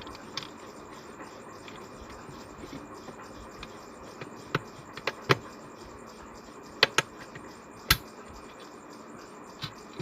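Sharp plastic clicks and knocks of an electrical socket module being handled and fitted into a switchboard plate, about six separate clicks, two pairs close together in the middle, over a faint steady hiss.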